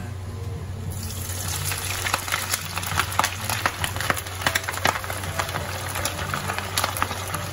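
A pan of rice boiling hard: a dense crackling bubbling over a steady low hum, starting about a second in, while chunks of boiled meat are tipped into the pot.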